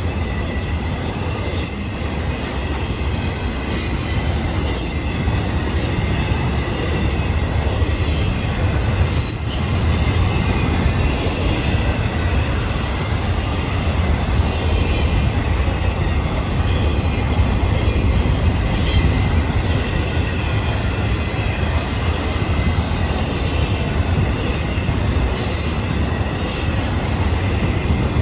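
Florida East Coast Railway intermodal freight cars rolling past: a steady low rumble of steel wheels on rail, with a faint high wheel squeal throughout and a sharp click now and then.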